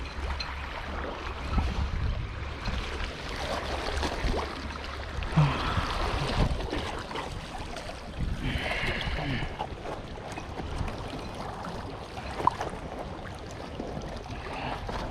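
Outdoor wind noise on the microphone beside the water, rumbling through the first few seconds, with scattered small knocks and a short high-pitched tone a little past the middle.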